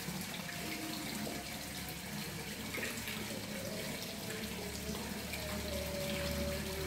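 Steady rushing noise, like water running.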